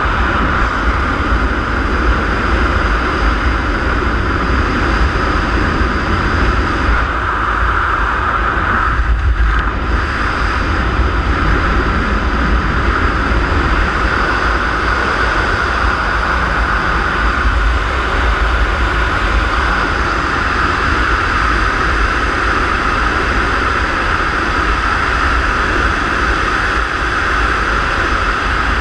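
Loud, steady wind rushing and buffeting over a camera microphone during a wingsuit skydive, with a deep fluttering rumble underneath. It dips briefly about nine seconds in.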